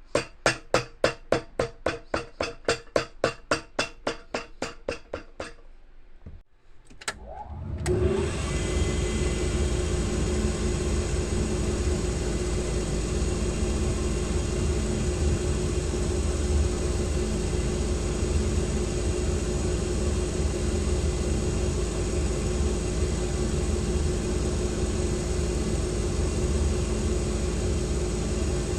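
A quick run of about twenty hammer blows, some four a second, that stops after about five seconds. About two seconds later an electric shoe-repair machine starts up and runs steadily with a constant hum and whine.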